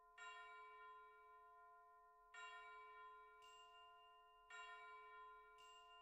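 Faint bell chime in background music: the same bell-like note is struck three times, about two seconds apart, each one ringing out slowly.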